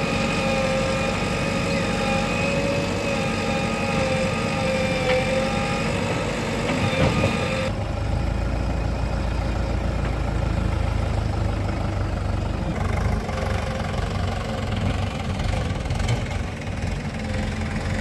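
Diesel engines of a JCB 3DX backhoe loader and a Swaraj 843 XM tractor running steadily, with a steady whine over the engine note. About eight seconds in the whine stops suddenly and a deeper, heavier rumble takes over.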